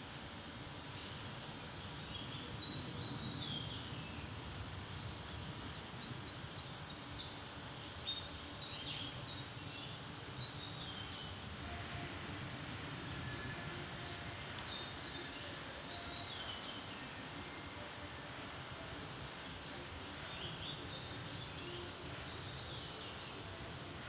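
Weaverbirds chirping and chattering in a tree, with runs of quick repeated high notes about five seconds in and again near the end, over a steady low background rumble.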